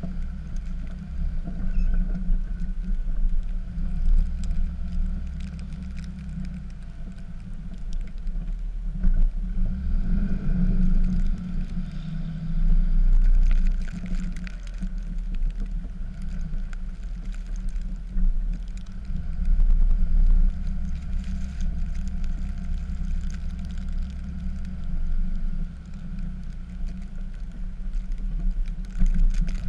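Dodge pickup's Cummins diesel engine running steadily as the truck plows snow, a low rumble that swells louder a couple of times, about a third of the way in and again two-thirds of the way through.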